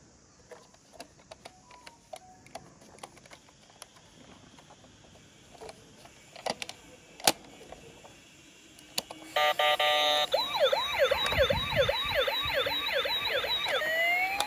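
Small plastic clicks and knocks from a toy ambulance being handled, one sharp click about seven seconds in. About nine seconds in, the toy's electronic siren starts loud: a short steady tone, then a quick whooping wail of rising sweeps, about three a second, turning into a slower rising and falling wail near the end.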